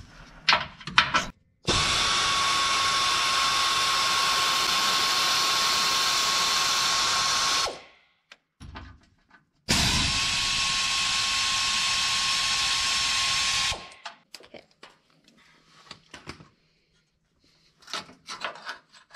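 Pneumatic air ratchet running in two long bursts of about six and four seconds, a steady whine over air hiss, as it spins out small bolts on the truck's old shift linkage. A few faint metal clicks follow near the end.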